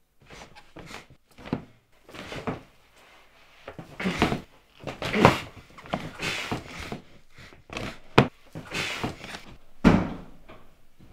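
Irregular indoor thumps, knocks and rustles, with a sharp knock about eight seconds in and a heavier thud near the end.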